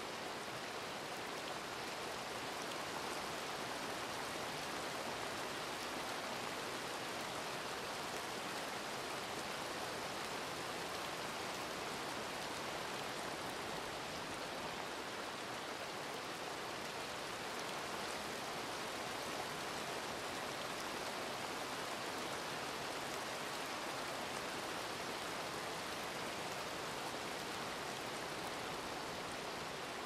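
Steady rain falling, an even hiss with no single drops or knocks standing out.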